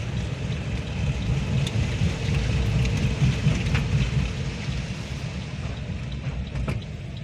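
Heavy rain pattering on a car's roof and windscreen, heard from inside the cabin, over the low rumble of the car moving along a flooded road. The rumble swells for a couple of seconds in the middle.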